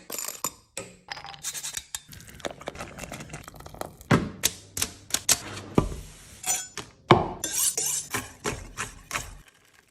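Kitchen utensils and dishes being handled: irregular clinks, clatters and knocks of metal and glass or ceramic, with a few short scraping or rustling stretches in between.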